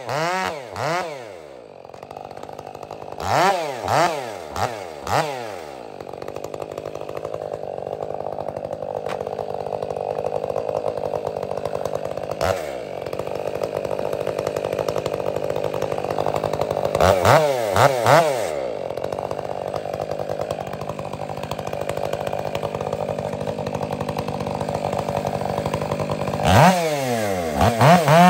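Two-stroke chainsaw running. It revs up and drops back in short bursts several times between long stretches of steady idling, then revs up again near the end and settles into a steady loaded note as it bites into another round of dry fir.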